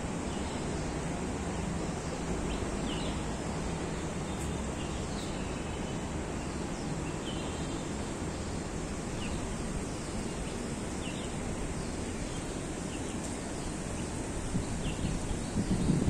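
Steady outdoor ambience with wind on the microphone and short, high bird chirps every second or two; a stronger gust of wind buffets the microphone near the end.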